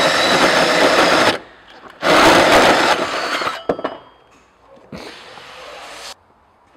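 Drill driving a hole saw through the sheet-metal inner wing of a Land Rover Discovery, cutting in three bursts: a long loud one, a second loud one after a short pause, and a shorter, quieter one about five seconds in, with a few sharp clicks between them.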